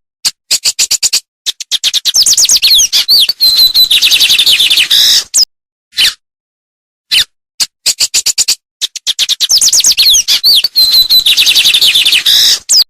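A songbird singing a long phrase that starts with a quick run of ticking notes and builds into fast, high warbles and trills. The phrase comes twice, with single sharp call notes between.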